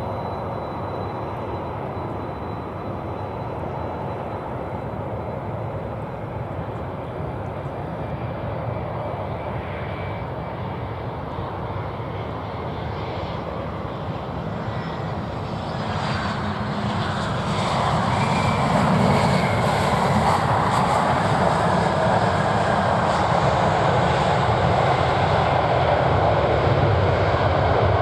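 Airliner engines running, the sound swelling markedly a little past halfway as the aircraft comes closer, then holding loud.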